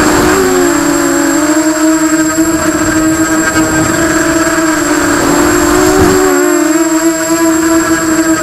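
Nighthawk Pro 280 racing quadcopter's brushless motors and propellers whining steadily in flight, heard from a camera mounted on the quad. The pitch wavers briefly about half a second in and again about six seconds in as the throttle changes through the turns.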